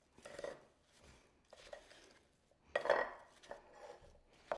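Wooden spoon stirring sliced apples in a ceramic bowl, making irregular scrapes and knocks against the bowl as the coated slices shuffle over each other. The loudest stroke comes about three seconds in.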